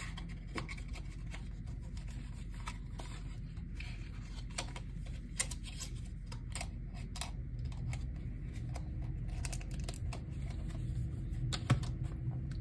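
Scattered light clicks and taps of hands handling K-pop album packaging and inclusions, over a low steady hum.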